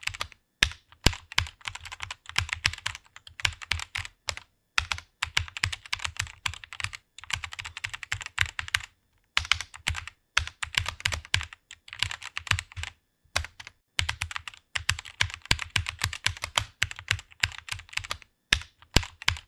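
Fast typing on a computer keyboard: rapid runs of keystroke clicks, broken every few seconds by brief pauses.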